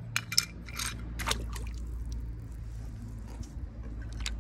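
Light clicks and taps of small die-cast metal toy cars being handled and set down on a stone ledge, over a low steady rumble.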